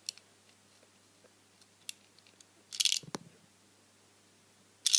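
Lego vending machine's plastic bricks and parts clicking and clattering as its pull slider is worked: a few faint clicks, a short clatter ending in a knock just before three seconds in, and another clatter at the end.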